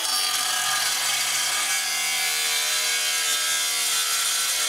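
Power grinder's abrasive wheel grinding steel: a steady harsh grinding noise with a few held whining tones that shift slightly in pitch.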